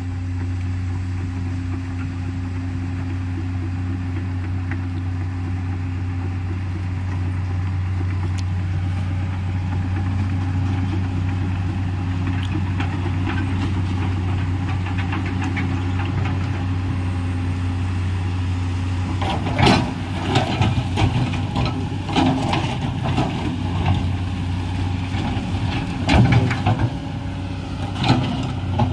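Komatsu PC210LC excavator's diesel engine running with a steady low hum. From about two-thirds of the way in, irregular loud clanks and knocks are heard over it.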